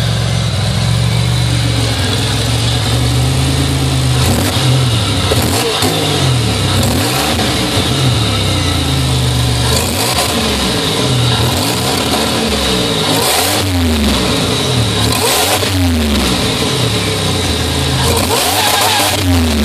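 Buick Regal GSE's supercharged V6, fitted with a smaller 3.4 supercharger pulley and headers, runs steadily and is then revved up and down about a dozen times in quick blips from about four seconds in. The owner says the engine has a persistent misfire.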